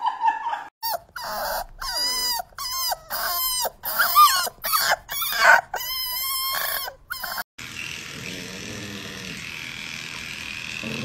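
Puppies crying in a string of high whimpering yelps, each bending up and down in pitch, broken by short silences. About seven and a half seconds in this gives way to a steady hiss with a faint high whine.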